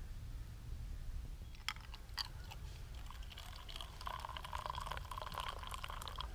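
Water poured from a kettle into a steel camp mug, a steady gurgling stream starting about halfway through, after two sharp clinks of metal.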